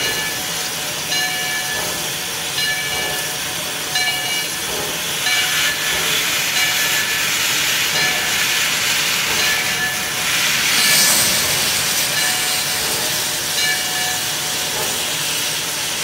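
Steam locomotive Lehigh Valley Coal Co. No. 126 standing with steam hissing, over a bell-like clang that repeats about every three-quarters of a second and fades after a few seconds. About eleven seconds in, a louder rush of steam from the open cylinder cocks.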